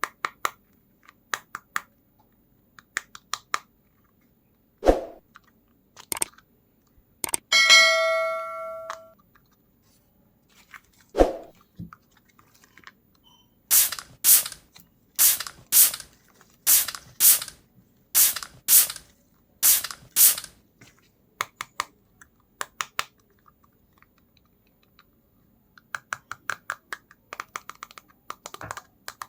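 Scattered clicks and taps of a plastic makeup kit being handled and opened. About a quarter of the way in, a single ringing ding fades out over about a second and a half. In the middle, about eleven short hissing bursts come at an even pace, roughly two every second.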